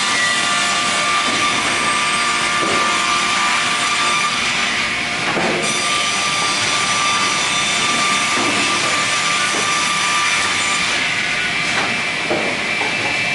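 Four-blade multiple rip saw running with a steady high whine over a hiss, as a live-edge board is fed through and ripped.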